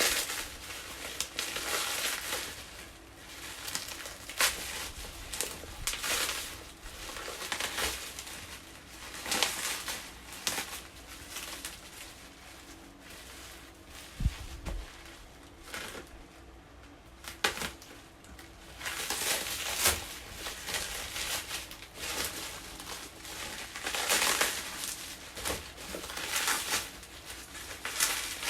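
Parcel wrapping being crinkled and torn open by hand, in irregular rustling bursts with a quieter stretch in the middle.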